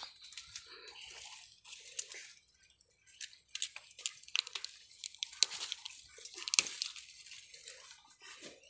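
Leaves and stems of climbing bean vines rustling and crackling under a hand, with many irregular sharp snaps and clicks as bean pods are picked.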